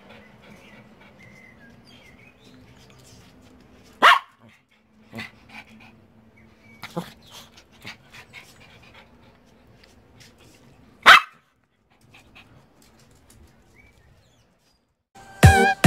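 Pomeranian barking sharply twice, about seven seconds apart, with a few fainter yaps between: excited greeting barks at the owner's return. Music starts near the end.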